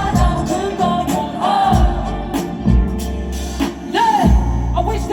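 Live hip-hop performance over a loud sound system: a beat with heavy bass and regular drum hits under a sung vocal line.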